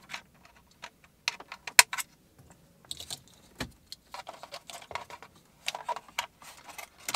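Plastic wiring-harness connectors clicking and rattling as they are handled and plugged into the back of a car's dashboard control panel. Irregular small clicks, the sharpest a little under two seconds in.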